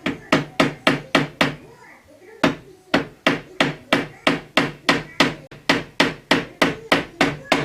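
A hammer tapping on wood in quick, even blows, about three to four a second, with a brief pause about one and a half seconds in.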